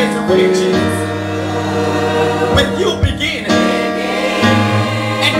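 Gospel choir singing into microphones over sustained instrumental chords.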